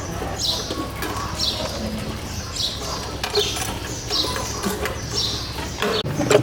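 A bird calling over and over, a short high falling call about once a second, over a steady low hum. Near the end a louder low rumble with a few clicks comes in.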